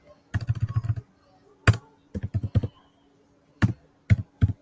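Typing on a computer keyboard: a fast run of keystrokes near the start, a shorter run a little later, then a few single key clicks spaced apart near the end.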